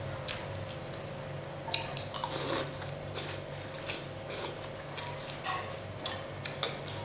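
Close-up eating sounds: noodles being slurped from a bowl of noodle soup and wet chewing, in short irregular bursts that are loudest about two to three seconds in. Scattered clicks of a fork and spoon on plates, over a steady low hum.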